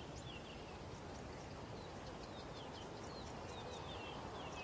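A small wild bird calling in quick runs of short, high chirps with falling notes, over a steady low background hiss; the calls pause for about a second and resume about two seconds in.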